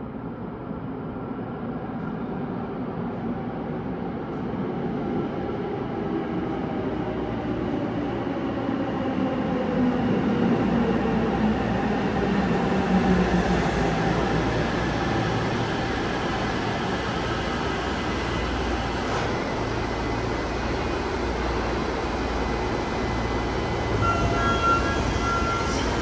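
Tokyo Metro Namboku Line train arriving and braking to a stop. Its running noise builds over the first ten seconds, and a motor whine falls in pitch as it slows. Near the end a short pulsing chime sounds as the doors open.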